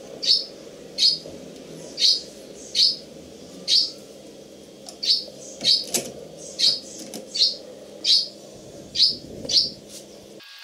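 A bird chirping over and over: a single short, high chirp roughly every three-quarters of a second, over a steady low hum. It all cuts off abruptly near the end.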